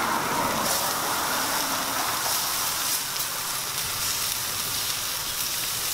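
Pork and chicken sizzling on a gas grill's flat-top griddle: a steady crackling hiss, with a few light clicks of tongs turning the meat.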